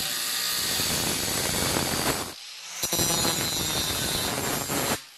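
Angle grinder with a thin cut-off wheel slicing through the rusted sheet-steel lower edge of a Mercedes W109 rear door. It makes a steady high whine with a gritty hiss, eases off briefly about two seconds in, then bites again and stops near the end.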